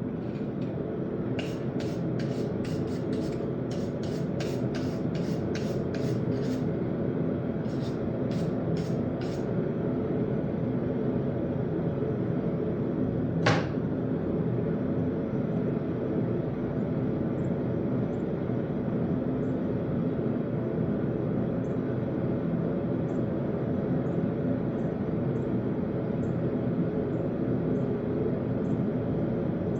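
A steady low mechanical drone runs throughout. Over it come a quick series of light ticks in the first third and a single sharp click about halfway through.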